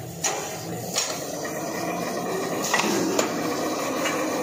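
An automatic tape-winding machine running with a steady mechanical whir and a few sharp clicks and knocks from its moving parts.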